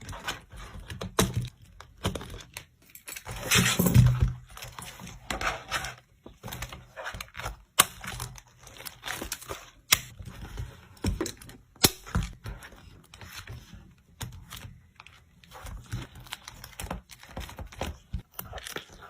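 Hands unwrapping and handling photocard packaging: crinkling plastic and paper with many small clicks and taps, and a louder, longer tearing rustle about four seconds in.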